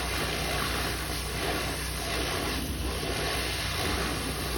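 Pressure washer spraying water onto a roof surface: a steady rushing hiss over the machine's steady low hum.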